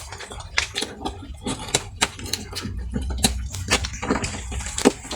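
Irregular sharp clicks and taps, several a second, from oyster and clam shells being handled and knocked together while they are eaten.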